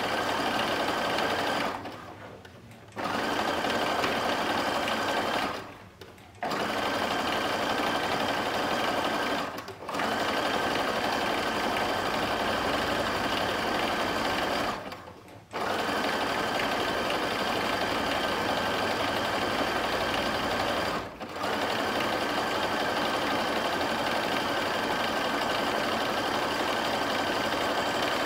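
Domestic sewing machine running steadily while sewing a triple-step zigzag stretch stitch on knit fabric. It stops briefly five times between runs.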